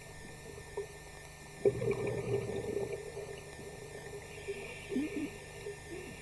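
Scuba diver's exhaled bubbles gurgling underwater: one burst of bubbling about one and a half seconds in that lasts over a second, then a few fainter gurgles near five seconds, over a faint steady hum.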